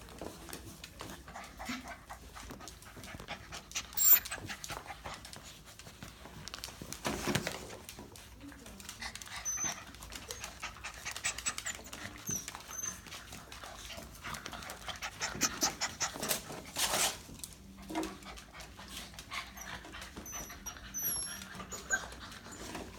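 F1b goldendoodle puppies panting and shuffling about, with small high squeaks now and then.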